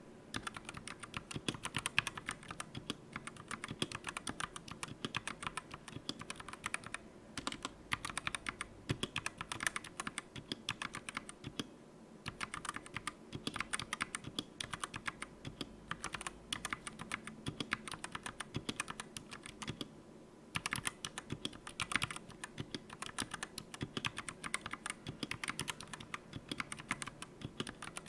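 Fast typing on a DA Meca 6X Plus mechanical keyboard with linear red switches: a dense run of key clacks, broken by a few short pauses.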